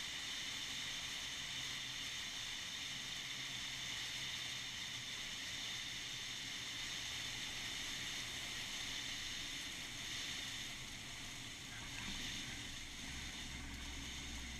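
Wind rushing over a wing-strut-mounted camera on a Cessna 172S landing, with the drone of its four-cylinder Lycoming engine underneath. The sound eases off about ten seconds in as power comes back for the flare. A brief bump about twelve seconds in, followed by a low rumble, marks the wheels touching down and rolling on the runway.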